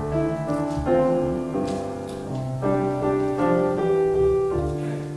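Keyboard accompaniment playing a slow run of held chords, with no voice over it.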